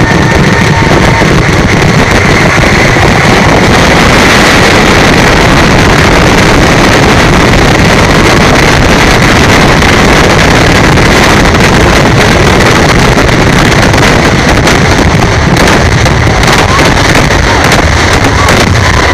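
A dense barrage of fireworks and firecrackers going off in rapid succession, packed so tightly that the reports merge into one continuous, very loud din with no pauses.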